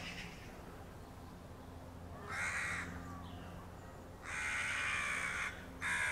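Crow cawing three times in harsh, rasping calls: a short caw a couple of seconds in, a longer drawn-out caw about four seconds in, and another just at the end.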